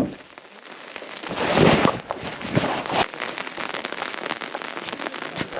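Rain falling, a dense crackle of drops striking close by, with a louder rush about one and a half seconds in.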